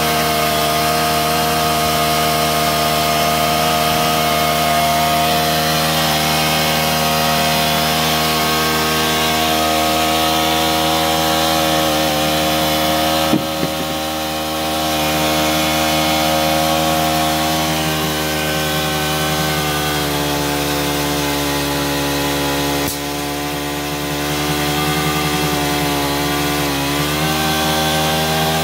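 Engine of a borehole drilling rig running steadily, with a short dip in pitch near the end. A sharp knock sounds twice, about halfway through and again later.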